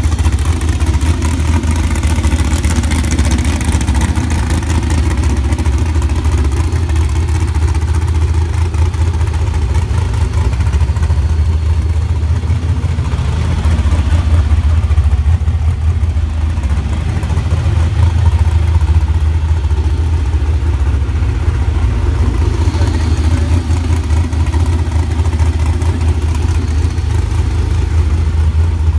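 Sand rail's LS1 V8 engine idling steadily with a deep, even exhaust note.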